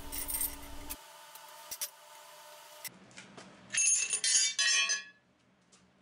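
Flat steel plates clinking against each other and the steel workbench as they are handled, with a short run of bright, ringing metallic clinks about four seconds in.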